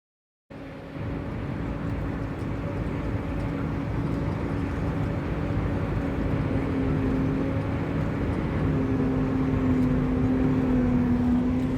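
Corn silage harvesting machinery running with a steady droning hum over a rushing noise, cutting in abruptly about half a second in.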